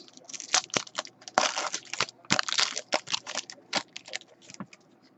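Trading-card packs and cards being handled: a quick run of crinkles, clicks and rustles, with the sound thinning out near the end.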